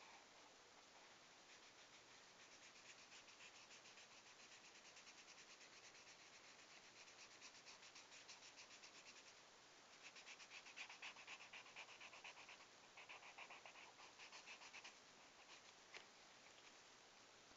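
Felt-tip marker colouring in on paper with fast back-and-forth strokes, a faint scratchy squeak that grows louder about ten seconds in, followed by a single click near the end.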